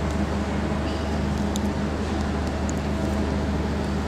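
Steady low hum with a fainter higher tone over it and a few faint ticks, the constant background noise of a large hall.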